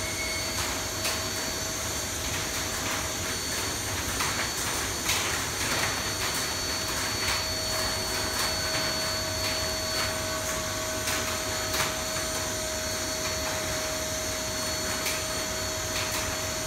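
A vacuum running steadily with a constant hum, sucking the air out through a hose from an aluminium foil barrier bag wrapped around a machine. The foil crackles now and then as it is drawn tight.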